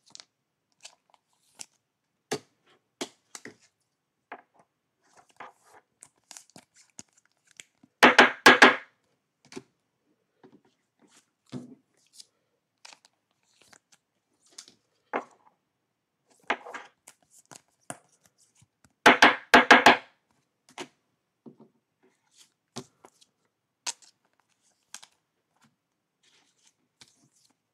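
Baseball cards being handled and slid into plastic sleeves: light, scattered clicks and rustles. Twice, about eight seconds in and again about nineteen seconds in, comes a loud tearing, crinkling burst of plastic wrapping lasting under a second.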